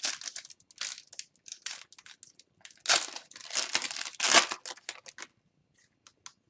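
Plastic foil wrapper of a trading card pack being torn and crinkled in the hands, in a run of rustles that is loudest about three to four and a half seconds in, then trails off to a few light clicks.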